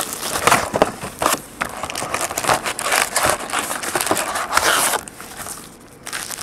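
Plastic wrapping and card packs crinkling and rustling as a sealed trading-card box is handled and opened, in quick irregular crackles. It quietens for the last second or so.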